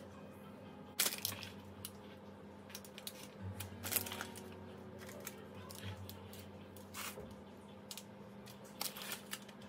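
Faint, scattered scrapes of a silicone spatula scraping melted chocolate out of a glass bowl and spreading it, with light rustles of the parchment paper lining the dish, over a low steady hum.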